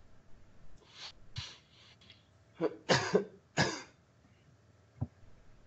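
A person coughing and clearing their throat over an online call: two softer coughs, then a cluster of louder ones about three seconds in, followed by a single click near the end.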